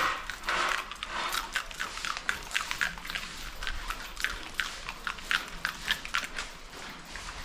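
Pigs eating, with quick, irregular wet smacks and chewing several times a second.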